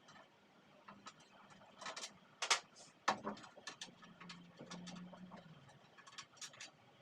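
Irregular clicks and knocks of hard objects being handled, a few of them sharper, with a brief low hum about four seconds in.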